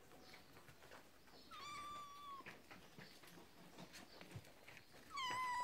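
Kitten meowing twice: two high, drawn-out mews about a second long, the first a second and a half in and a louder one near the end, each dipping slightly in pitch and then holding.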